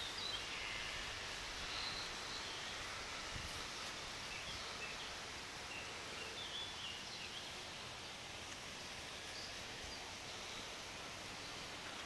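Outdoor garden ambience: a steady even hiss with faint, scattered bird chirps here and there.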